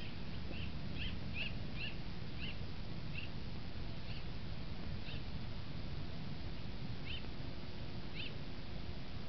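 A small bird chirping in short, high notes: a quick run of about eight chirps in the first three seconds, then a few scattered ones. Under them is a steady low rumble of wind on the microphone.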